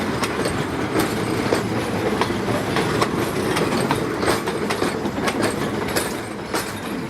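Railway passenger carriages rolling into a station: a steady rumble with frequent, irregular clicks and clacks of the wheels over the rail joints. It eases a little near the end.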